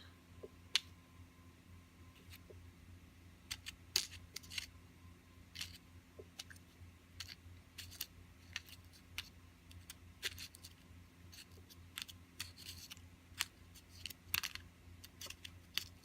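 Small loose pins and parts of a gutted American 5200 padlock clicking and tapping against each other and a hard surface as they are handled, in irregular single clicks and short clusters, over a faint steady low hum.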